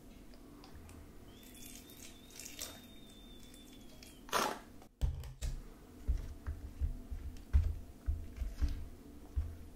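A short squirt of activator solution from a plastic squeeze bottle, then a plastic spoon stirring thickening glitter slime in a plastic tray, with irregular sticky squelches and clicks.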